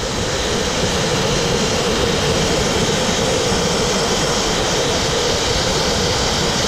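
Wet abrasive (dustless) blast nozzle firing water and fine crushed-glass grit against brick, a steady, loud rushing hiss as it strips cement-backed Sandtex paint off the wall.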